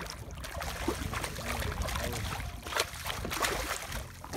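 Water splashing and churning as a large longfin crevalle jack (Caranx fischeri) thrashes at the surface alongside the boat, in irregular bursts.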